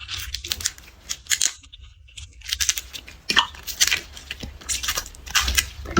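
Garlic being peeled, its dry papery skin crackling and tearing in quick, irregular crackles, with a short pause about two seconds in.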